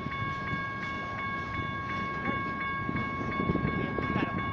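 General Signals Type 1 electronic grade-crossing bells ringing rapidly, about three strikes a second, over the rumble and clatter of freight cars rolling through the crossing.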